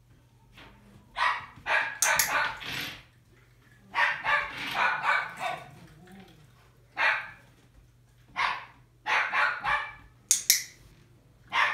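Dog barking: short, loud barks, some single and some in quick runs, with pauses of one to two seconds between them.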